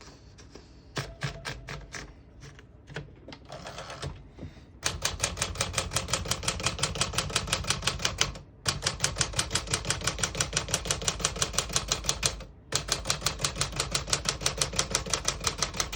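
1956 Smith-Corona Clipper manual portable typewriter: a few scattered clicks at first, then from about five seconds in, fast, steady runs of keystrokes as the keys are typed through one after another, broken by two short pauses. The keys strike cleanly, without sticking or skipping.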